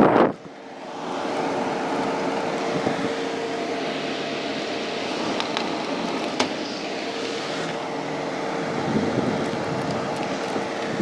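Condura 2 HP non-inverter window-type air conditioner running after its cleaning: a steady rush of fan air with a steady hum, building up over the first second.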